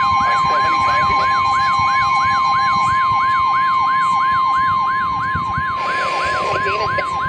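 A steady 1050 Hz NOAA Weather Radio warning alarm tone sounds together with a siren-like alert tone that sweeps up and down in pitch about three times a second, signalling that a new warning is about to be read.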